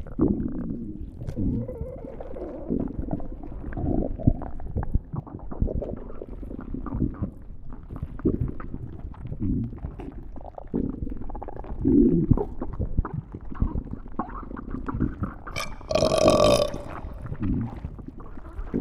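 Stomach growling: a continuous run of irregular low gurgles and rumbles. Near the end comes one louder, higher-pitched squeal lasting about a second.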